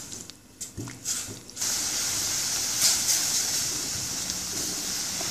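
Tomato and ground spice paste sizzling in a little water in a kadai on medium heat, being cooked down without oil, while a silicone spatula stirs it. A few light spatula knocks at first, then a steady hiss about a second and a half in.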